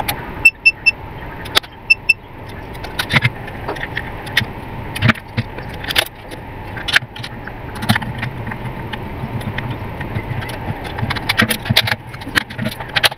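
Mastech MS2128A clamp meter giving short high beeps, three in quick succession about half a second in and two more about two seconds in, as its selector dial and buttons are worked. Then many sharp plastic clicks and knocks as the meter's case and battery compartment are handled and a screwdriver is set to the battery cover screw near the end.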